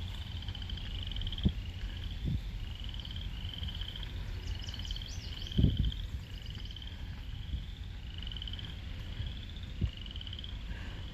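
Frogs calling: a steady run of short, high trilled calls, about one a second. A few brief low thumps, the loudest about halfway through.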